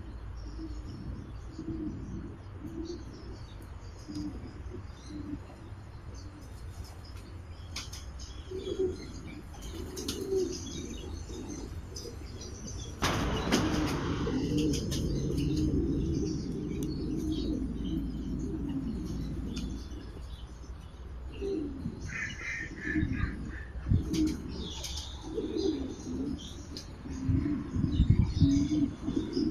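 Doves cooing, short low coos repeating on and off. About halfway through, a loud rushing noise starts suddenly and lasts several seconds.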